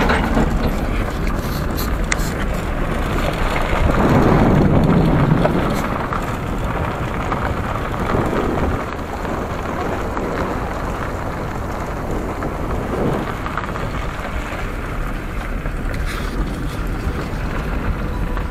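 Maruti Suzuki Zen driving on a dirt road: a steady rumble of tyres and engine mixed with wind rushing over the microphone, swelling louder about four seconds in.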